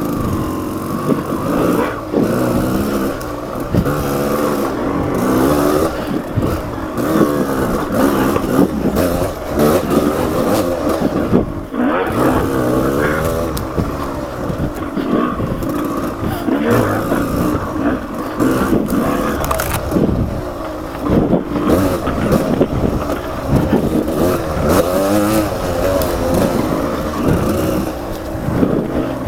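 Off-road motorcycle engine running on a trail, its pitch rising and falling constantly as the throttle opens and closes.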